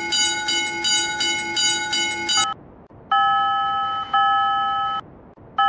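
Japanese railroad-crossing warning bell sound effect ringing quickly, about three strokes a second, then stopping about two and a half seconds in. After a short pause come slower rings in a different tone, each about a second long and fading.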